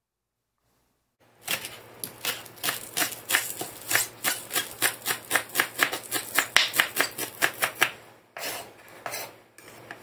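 Knife chopping green onions on a wooden cutting board. The strokes begin about a second in, fast and even at about four to five a second, then slow to a few separate strokes near the end.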